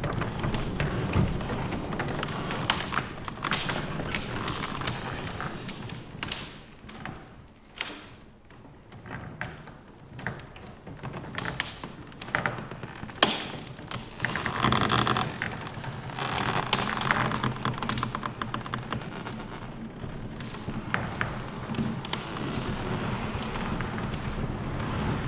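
Old wooden floor planks creaking and knocking under a heavy load, with many irregular taps and thuds over a low rumble. The sound dies down for a few seconds about a third of the way in, then picks up again.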